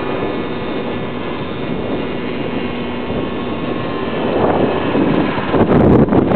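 Small scooter engines running steadily at cruising speed, heard from a moving scooter with wind rushing past the microphone. The rush grows louder about five and a half seconds in.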